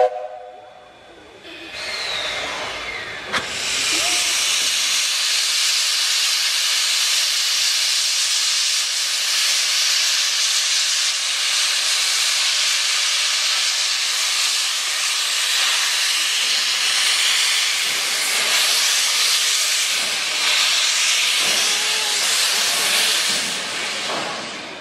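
Class 8620 steam locomotive No. 8630 blowing steam from its open cylinder drain cocks: a loud, steady hiss that builds in over the first few seconds and fades near the end. A short loud blast sounds at the very start.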